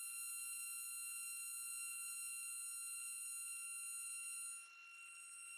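CNC milling machine's end mill cutting a metal mould plate, giving a steady high-pitched whine with overtones. A little after four and a half seconds in, the whine briefly drops and its upper tones fade, then it steadies again.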